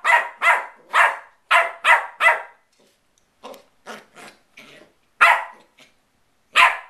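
West Highland White Terrier puppy barking in play: a quick run of barks, about three a second, for the first two seconds or so, then a few quieter sounds, and two more single barks near the end.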